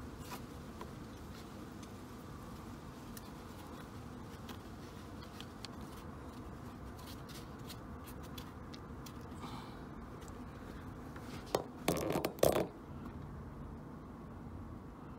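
Hands pressing and working a 2007 Ford Fiesta's plastic air-cowl grille and its rubber seal into place at the base of the windshield, with light plastic clicks and scrapes over a steady background hiss. A short run of louder plastic clicking and rubbing comes about twelve seconds in.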